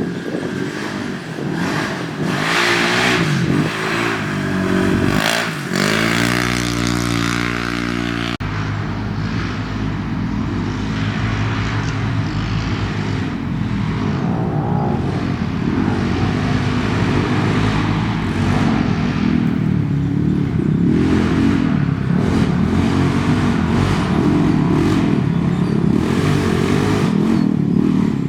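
Off-road race vehicle engines revving hard, their pitch rising and falling as they accelerate and lift off, with an abrupt change about eight seconds in where one clip gives way to another.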